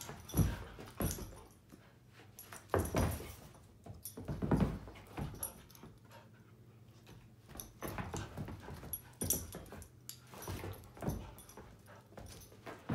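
Two dogs playing and pouncing after a laser-pointer dot on a rug: irregular scuffles and knocks of paws and bodies every second or two, with short dog noises.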